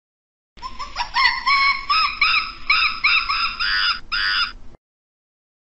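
A primate's high call: one steeply rising note, then a quick run of about a dozen short, arched, repeated notes. It starts about half a second in and cuts off abruptly after about four seconds.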